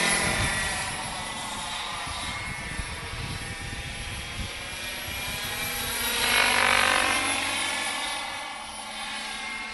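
Bergen Intrepid turbine RC helicopter flying overhead: a high turbine whine with rotor noise, its pitch falling at first, then swelling louder and sliding again about six to seven seconds in as it makes another pass.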